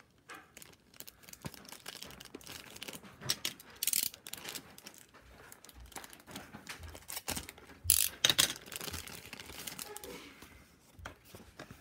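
A plastic toy phone being handled and turned over in the hands: scattered clicks, taps and rustling, loudest about four and eight seconds in.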